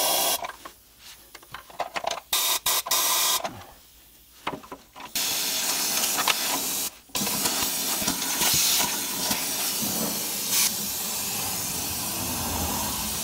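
Air-powered undercoating spray gun with a multi-hole wand nozzle hissing as it sprays rust-proofing oil into frame holes. A few short bursts at first, then an almost unbroken spray from about five seconds in, with one brief stop.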